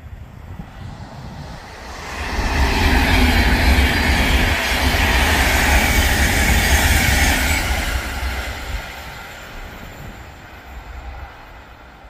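Avanti West Coast Pendolino electric express train passing at speed: a rushing rumble of wheels on rail. It swells about two seconds in, stays loud for several seconds as the coaches go by, then fades away.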